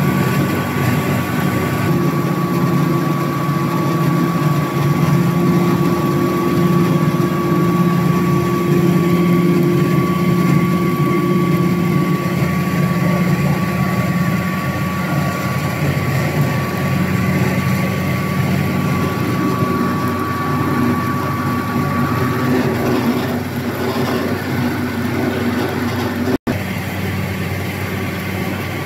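Small rice milling machine running steadily, a continuous machine hum with a thin high whine that fades out about three-quarters of the way through. The sound drops out for an instant near the end.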